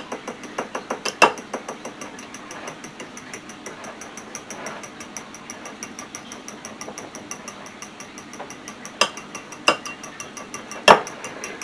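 A metal fork beating raw eggs in a small glass bowl: a fast, even clicking of the fork against the glass, with a few louder knocks against the bowl about a second in and near the end.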